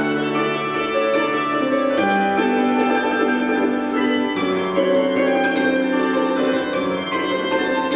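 An ensemble of tsymbaly, Belarusian hammered dulcimers, playing a tune, with the chords changing every couple of seconds.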